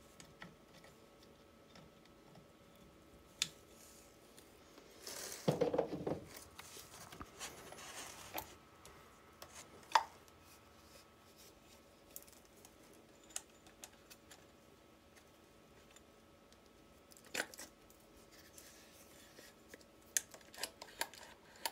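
Small clicks and clinks of metal as a Fiat 126 starter motor is worked on with pliers and turned over in the hands. A louder scraping rustle comes about five to six seconds in, and sharp single clicks are scattered through.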